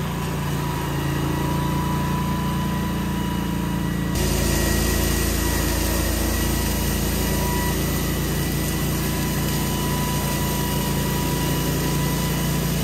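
AS Motor 901 walk-behind flail mower running steadily under load as it cuts through long, thick grass; the engine and flail rotor make a constant mechanical sound that gets slightly louder about four seconds in.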